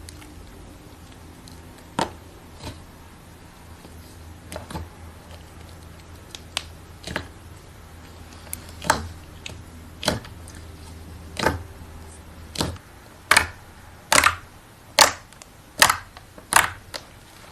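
Slime being pressed and poked, giving sharp pops and clicks that come faster and louder in the second half.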